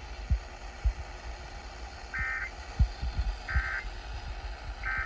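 Emergency Alert System end-of-message code: three short bursts of rapid two-tone digital warbling, each well under half a second and spaced a little over a second apart, closing a severe thunderstorm warning broadcast. Underneath runs a steady hiss with scattered low thumps.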